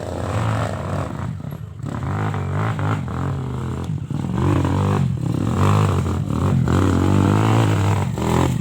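Trail motorcycle engine revving unevenly, its pitch rising and falling as the throttle is worked, with some clatter.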